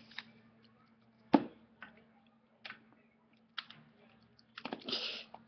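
Plastic wrestling action figures handled and knocked against a wooden floor: scattered clicks and taps, the loudest about a second and a half in, then a quick cluster of knocks near the end, over a faint steady hum.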